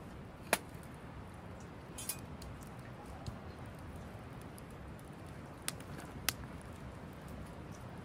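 Wood fire crackling in a small metal fire pit, with about five sharp pops, the first and loudest about half a second in, over the steady rush of a river.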